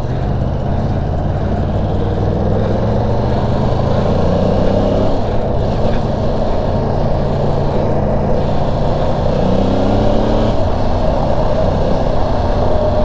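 2023 Yamaha R1's crossplane inline-four engine pulling under acceleration, the revs climbing and then dropping at an upshift about five seconds in, and climbing again to another shift near ten seconds, over steady wind noise.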